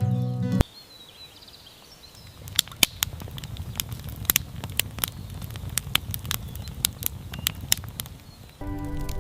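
Campfire crackling: irregular sharp pops and snaps over a low rumble. Acoustic guitar music stops under a second in and starts again near the end.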